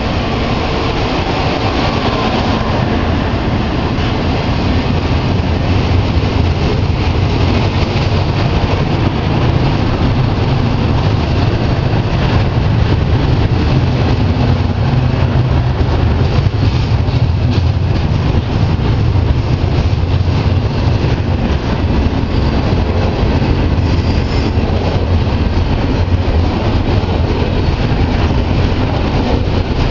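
Double-stack intermodal freight train's loaded well cars rolling past: a loud, steady rumble of steel wheels on rail with scattered clicks.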